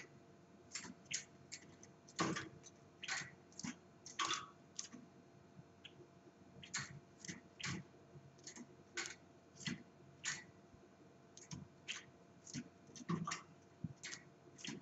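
A small bird hopping and fluttering about a wire cage, its feet and beak clicking and knocking on the metal bars and perch at an irregular pace of about two a second. The loudest knocks come about two seconds in and near the end.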